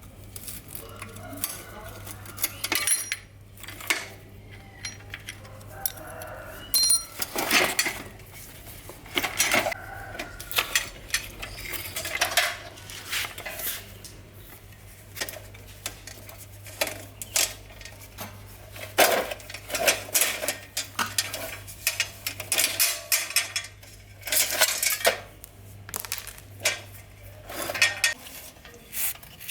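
Bicycle parts and hand tools being handled: irregular metallic clinks, knocks and scrapes. A low steady hum runs underneath and stops near the end.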